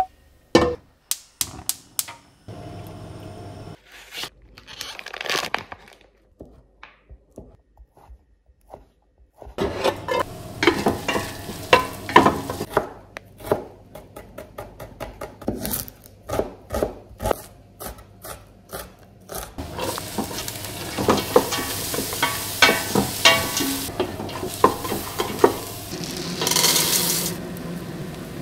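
Kitchen cooking sounds: a stainless steel pot knocking on a gas stove's grates, then a knife chopping quickly on a wooden board, then vegetables sizzling in the pot while a wooden spoon stirs them.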